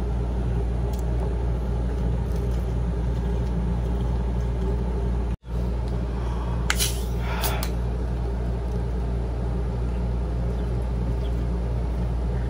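Steady low mechanical hum of a window air conditioner running, with a short hiss about seven seconds in. The sound drops out for an instant a little after five seconds.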